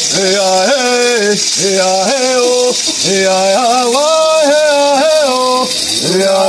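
A sung ritual chant, held notes sliding from pitch to pitch, over the continuous hiss of shaken maracá rattles.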